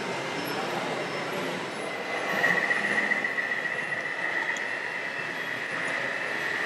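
Steady high-pitched whine from a radio-controlled model construction machine's small electric drive, coming in about two seconds in and holding steady, over a background of mixed noise.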